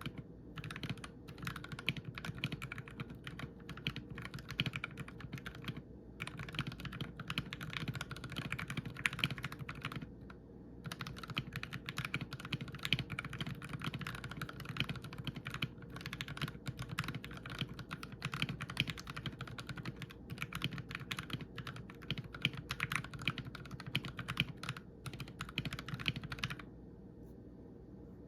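Fast typing on a Drop ALT mechanical keyboard with lubed Akko Jelly Black linear switches: dense runs of keystrokes broken by short pauses, stopping near the end.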